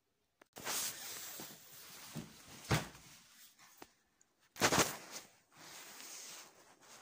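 Rustling and scuffing of plush toys and fabric handled close to the phone's microphone, with two sharp thumps, one a bit under 3 seconds in and one nearly 5 seconds in.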